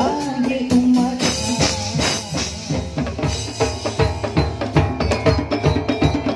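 Patrol percussion ensemble playing: a melodic line for the first second or so, then fast, dense drumming on hand drums and a drum kit.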